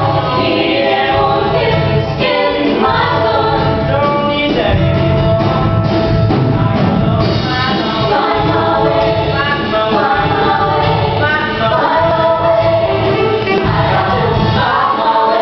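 Show choir singing live: a male and a female soloist on handheld microphones, backed by the choir and instrumental accompaniment.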